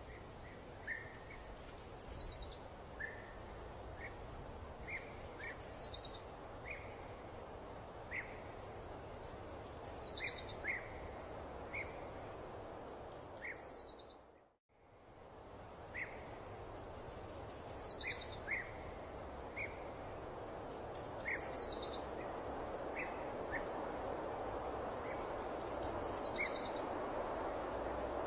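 Birds singing over a steady background hiss: one bird repeats a short falling series of high notes every few seconds, with scattered short chirps between. The sound drops out briefly to silence about halfway through.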